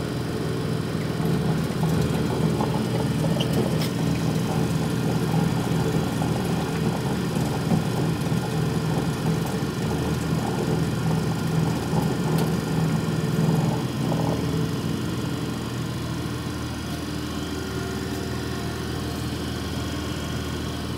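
Clausing Startrite V900H vertical bandsaw running with a steady mechanical hum from its 3 hp drive and blade wheels, while its variable blade speed is being adjusted. About two-thirds of the way through the hum shifts and settles a little quieter.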